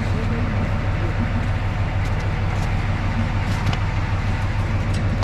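TU7A narrow-gauge diesel locomotive idling, a steady low hum, with a few faint metallic clicks.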